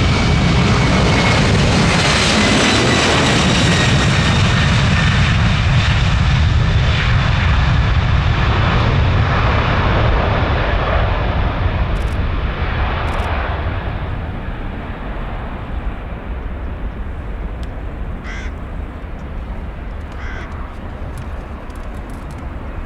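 Jet engines of a large airliner passing and then receding. The loud rush and high whine drop slightly in pitch in the first seconds, then fade steadily from about halfway through as the aircraft moves away.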